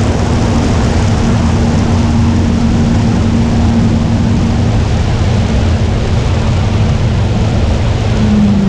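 Carbon-Z Cessna 150 electric RC model floatplane in flight, heard from its onboard camera: a loud, steady rush of air over the airframe with the motor and propeller humming at a constant pitch, which dips slightly near the end as the throttle eases.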